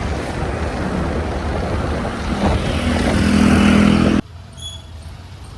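Road vehicle in motion: loud rushing wind and road noise over a low engine note that rises and grows louder for about four seconds, then cuts off suddenly to a quieter vehicle rumble.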